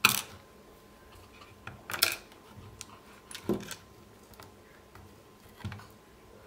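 Small handling sounds of a screwdriver and plastic parts inside an opened Dali Katch G2 speaker housing: a sharp click right at the start, a short scraping clatter about two seconds in, and single knocks at about three and a half seconds and near the end.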